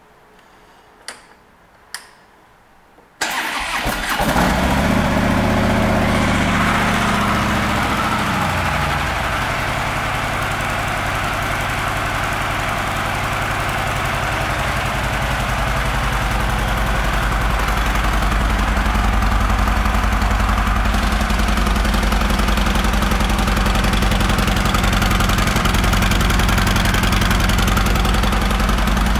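2013 Harley-Davidson Road Glide Ultra's Twin Cam 103 V-twin being started: two clicks, then the engine catches about three seconds in. Its revs fall over the next few seconds as it settles into a steady idle.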